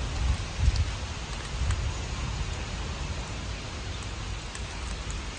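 Wood fire burning in a brick rocket stove under a wok of hot oil: a steady hiss with an uneven low rumble and a few faint crackles.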